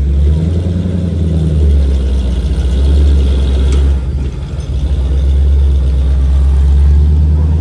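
Off-road rock-crawler buggy's engine running under load as it crawls up a steep rock chute. It dips briefly a little past four seconds in, then pulls steadily again.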